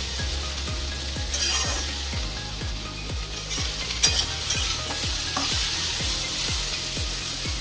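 Chopped okra frying over a high gas flame in a kadai, sizzling steadily while a metal spatula stirs and scrapes it through the pan, with a sharp clink of spatula on pan about four seconds in.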